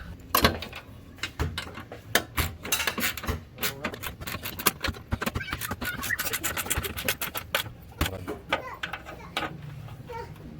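A rapid, irregular series of sharp clicks and knocks, thickest a couple of seconds in and again around the middle, over a low steady hum.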